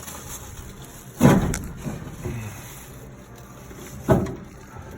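Two loud thumps, about three seconds apart, as a pickup's fuel tank is worked and twisted down on a jack and knocks against the frame.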